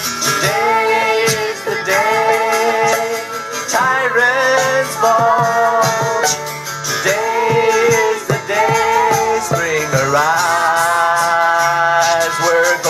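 Live band music: a fiddle playing a melody of held, sliding notes in short phrases, over strummed acoustic guitar and beatboxed percussion.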